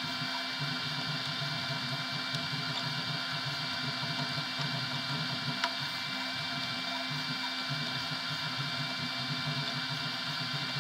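A desktop FDM 3D printer running a print: its stepper motors whine in a steady mix of tones over a fluttering low buzz as the print head moves. There is one small click about five and a half seconds in.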